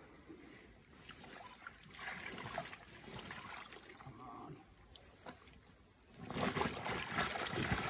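Lake water sloshing and splashing around a fish held in a sling in the shallows, as the fish and the handler's arms move in the water; the splashing grows louder about six seconds in.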